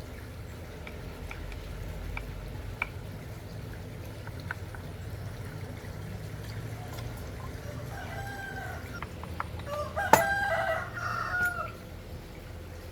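A rooster crowing, a drawn-out call of about three seconds in the last part, over a low steady rumble. A sharp click about ten seconds in is the loudest sound, with a few faint light clicks earlier.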